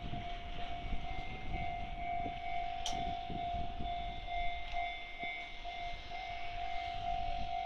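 Japanese level-crossing warning bell ringing with its steady electronic tone while a Kintetsu electric train runs through the crossing. The train's wheels knock repeatedly underneath, and there is one sharp click about three seconds in.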